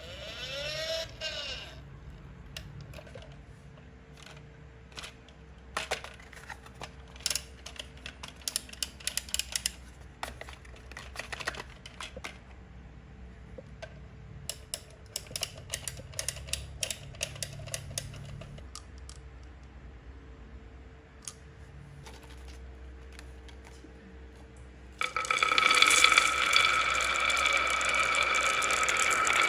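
Marble run: marbles and toy vehicles clicking and knocking irregularly along the track. About 25 seconds in, a much louder continuous rattling clatter starts.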